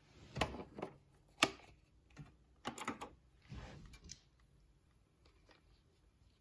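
Sharp clicks and knocks, the loudest about a second and a half in, then a quick cluster of clicks and a short rustle, from a Yamaha CDX-393 CD player being switched on, its display lighting up.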